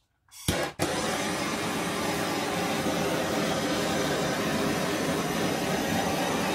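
Handheld torch flame starting about half a second in, then hissing steadily, passed over wet acrylic paint to pop surface bubbles.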